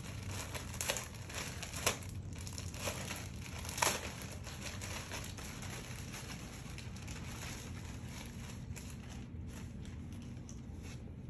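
Clear plastic packaging bag crinkling and rustling as it is pulled open and a jersey is drawn out of it. About four sharp crackles come in the first four seconds, then quieter rustling.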